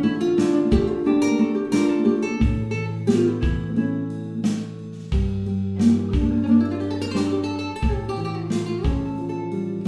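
Background music: an acoustic guitar strummed and plucked, with steady strokes throughout.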